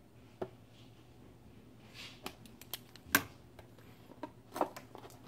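Quiet handling noises: a few scattered light clicks and rustles, with one sharper click about three seconds in.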